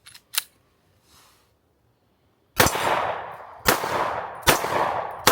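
A few faint handling clicks from a Canik Mc9 9mm pistol as the malfunction is checked, then the pistol firing again: three sharp shots about a second apart, starting about two and a half seconds in, each trailing off in a short echo.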